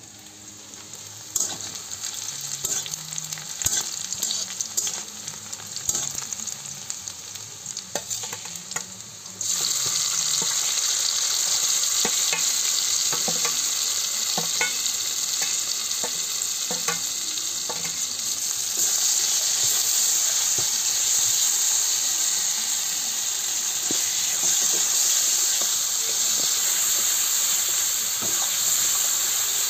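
Chicken and spice paste sizzling in hot oil in an iron kadai, with a metal spatula scraping and clicking against the pan as it is stirred. For the first few seconds there are only scattered clicks and scrapes. About a third of the way in, the sizzling starts suddenly and loudly as the paste hits the oil, and it then carries on steadily.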